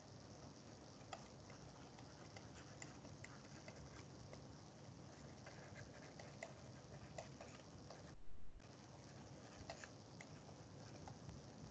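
Faint, irregular ticks of a stylus tapping on a tablet during handwriting, over a low steady hiss. A dull low bump comes about eight seconds in.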